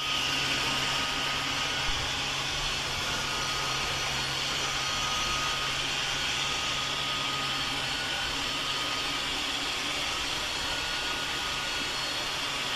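Robot vacuum cleaner running steadily: an even whirring hiss from its suction fan with a faint steady hum, unchanged throughout.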